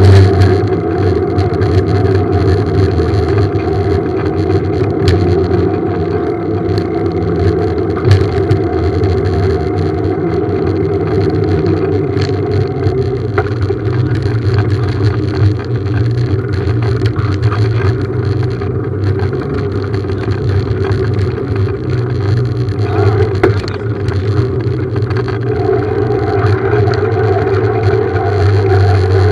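Small motorbike engine running at a steady pace while riding, a constant drone with road and wind noise, and a single sharp knock about eight seconds in.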